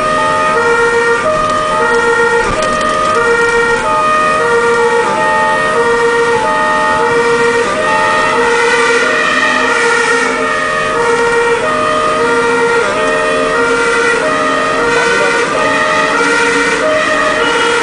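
German two-tone fire-engine siren (Martinshorn) sounding continuously on an emergency run, alternating evenly between a high and a low note about every three-quarters of a second. Heard from inside a fire engine's cab.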